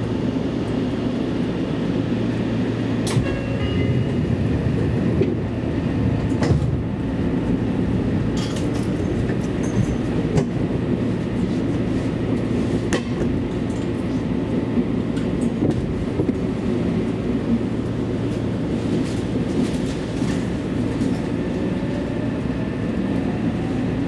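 Seibu Railway commuter train running along the track: a steady rumble of wheels on rails, with a few sharp clicks from rail joints.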